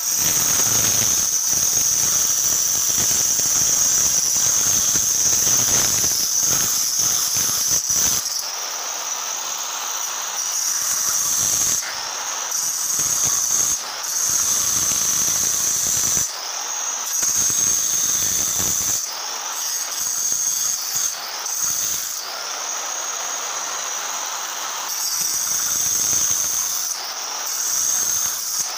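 Handheld electric marble cutter running at speed and cutting a curved S shape in marble: a steady high-pitched motor whine over a gritty grinding that swells and eases every few seconds as the blade is pressed into the stone.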